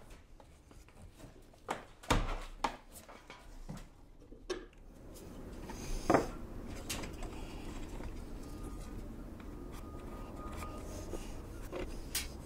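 Scattered clicks, knocks and rubbing of hand work on timber boat planking and framing, with a sharper knock about six seconds in.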